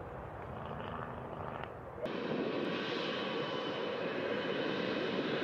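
Jet airliner engines running on the runway, a steady rushing noise. About two seconds in it changes abruptly to a louder, brighter rush with a thin high whine.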